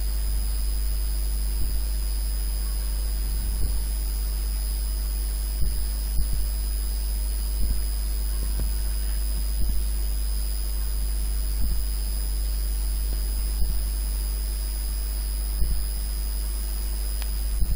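Steady low electrical hum with a thin, faint high whine above it, and a soft thump about every two seconds.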